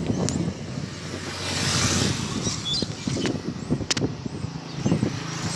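A road vehicle passing on the bridge, its noise swelling and fading about two seconds in, over a steady low rumble.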